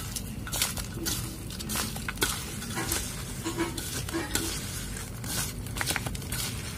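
Soaked lentils (dal) being mixed by hand with oil, chopped onion, chilli and spices: a run of irregular soft rustling, squishing strokes.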